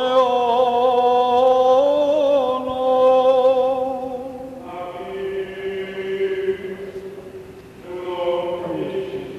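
Byzantine liturgical chant: a voice holds a long, slightly wavering note, then about five seconds in a lower sustained chant takes over, and another voice glides in near the end.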